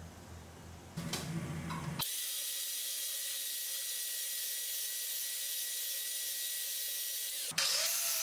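DeWalt portable band saw cutting a steel part held in a vise: a steady hiss with a thin high tone, starting abruptly about two seconds in. Near the end it cuts off suddenly and an angle grinder grinding steel takes over, its whine wavering in pitch.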